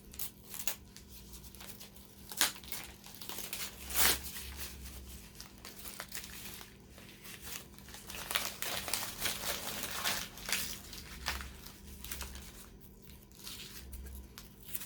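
Thin tape being peeled off a hand saw's handle and crumpled: irregular crinkling and tearing, with a couple of sharper snaps about two and four seconds in.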